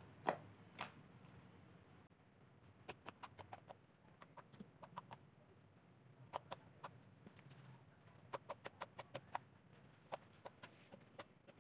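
Homemade baby-powder slime being kneaded and pulled by hand, giving small sticky clicks and pops that come in quick runs of several a second with short pauses between.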